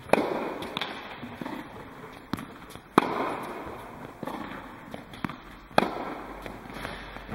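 Tennis balls hit by a racket three times, about every three seconds, each sharp pop ringing on in the echo of an indoor tennis hall, with lighter ball knocks in between.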